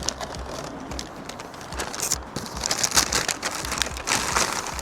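Packaging rustling and crinkling as items are handled and unpacked from a box, in irregular bursts, loudest about three seconds in and again near the end.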